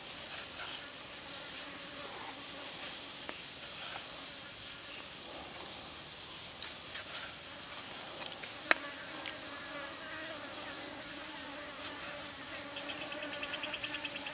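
Knife slicing raw squid on a wooden chopping block: soft taps of the blade, with one sharp knock on the board a little past halfway. Insects buzz steadily, with a humming buzz over the second half and a fast pulsing chirp near the end.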